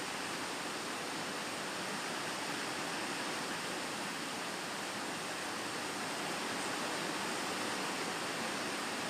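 Steady, even hiss-like noise at a constant level, with no tones, knocks or rhythm.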